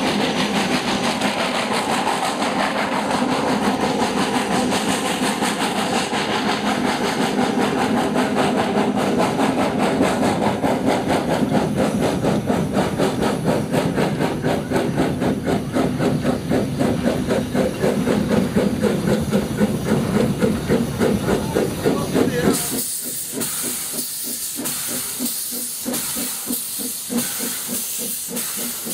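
Snowdon Mountain Railway steam rack locomotive No. 2 Enid working uphill into the summit station, its exhaust beating rapidly over the running noise of the train. About two-thirds of the way through, the heavy working sound drops away and a loud hiss of escaping steam takes over, with slower puffs, as the engine draws alongside.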